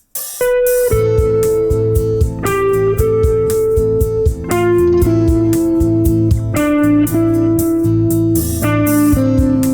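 Guitar playing an A minor scale melody along a single string over a steady A minor backing: each tension note on a weak beat moves by step to a consonant chord tone on the strong beat. The line starts about half a second in and steps mostly downward.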